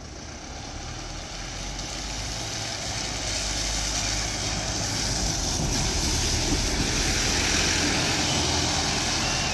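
Single-deck bus driving over a level crossing and past on a wet road: low engine rumble with tyres hissing on the wet surface, growing steadily louder as it comes close.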